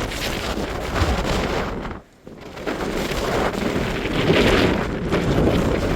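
Strong wind blasting across the microphone: a loud, continuous rushing roar, with a brief lull about two seconds in.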